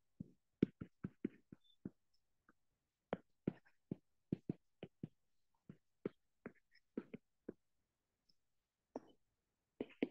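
Stylus tip tapping and ticking on a tablet's glass screen while handwriting: a quick, irregular run of light clicks, pausing briefly before a few more near the end.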